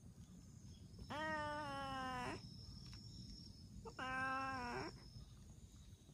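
A cat giving two long, drawn-out meows at a steady pitch: the first about a second in and lasting over a second, the second a little shorter, about four seconds in.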